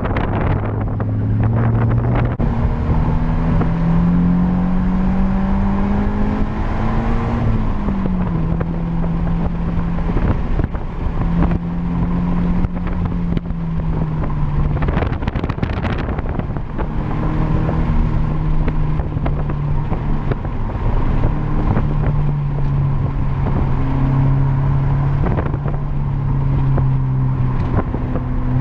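Car with a newly fitted catback exhaust driving under way: the engine note climbs slowly and drops back a few times as it shifts and changes throttle, with wind rushing over the microphone.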